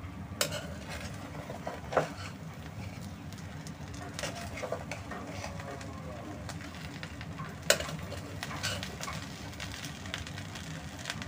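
A spatula turning and scraping through cooked pulao rice in a frying pan, with a few sharp knocks of the spatula against the pan over a faint steady low hum.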